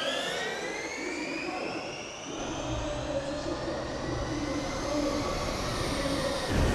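A pack of Ducati MotoE electric race motorcycles accelerating off the start line: several motor whines rise in pitch together, then hold high as the bikes pull away. A low rumble comes in about two and a half seconds in.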